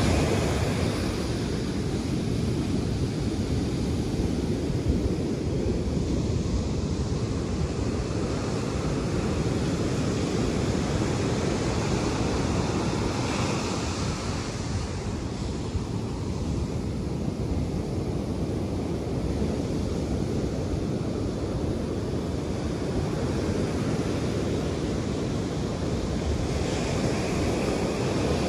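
Atlantic surf breaking and washing up the beach, a steady rush whose hiss swells three times: near the start, about halfway through and near the end. Wind buffets the microphone with a low rumble underneath.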